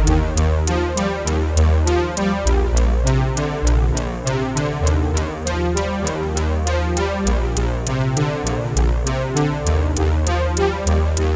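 Electronic background music with no vocals: a synthesizer bass line over a steady drum-machine beat ticking about four times a second.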